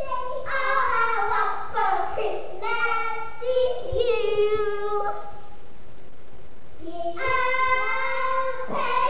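A young girl singing unaccompanied. She breaks off for about two seconds in the middle, then carries on.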